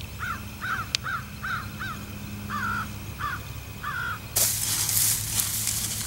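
A crow cawing about eight times in a quick series over a low steady hum. A little over four seconds in, this cuts to a loud rush of wind across the microphone.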